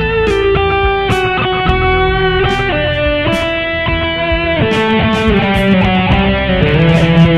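Electric guitar played through a Mooer GE150 multi-effects processor: a lead line of picked single notes, each held long and stepping from pitch to pitch. The playing grows fuller and busier about two-thirds of the way in.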